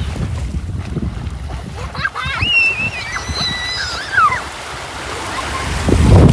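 Wind buffeting the microphone over the wash of surf. About two seconds in there are a few high, wavering calls in the distance, and near the end a strong gust hits the microphone.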